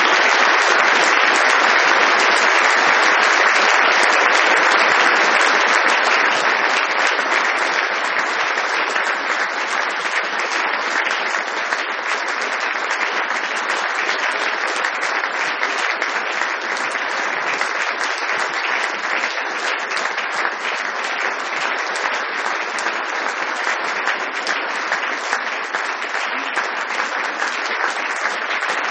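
Audience applauding steadily, loudest for the first six seconds or so, then settling a little lower.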